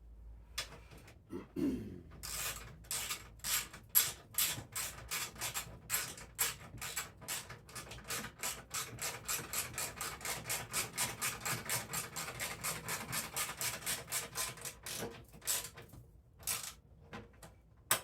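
Bolts being run into a sheet-metal snowblower belly pan with a hand tool: a fast, even train of rasping clicks, about four a second, that stops about two seconds before the end, with a few last clicks after it.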